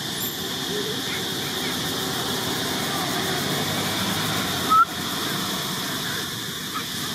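Steady outdoor background noise: an even high-pitched hiss over a low rumble, with a few faint short chirps and one brief knock about five seconds in.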